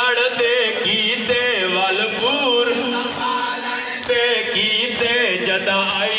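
A noha, a mournful Shia lament, chanted by a man's voice into a microphone. The melody bends and wavers in long held lines.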